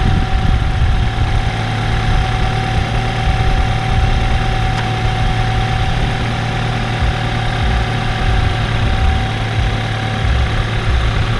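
BMW 328i's turbocharged four-cylinder engine idling steadily, a steady higher tone held over its low drone, running with a newly fitted MST aftermarket turbo inlet pipe.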